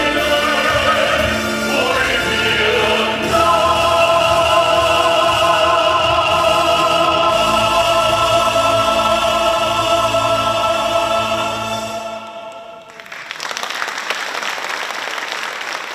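Male soloist and mixed choir singing with backing music, ending on one long held final note that wavers in pitch. The music fades out about twelve seconds in, and applause follows.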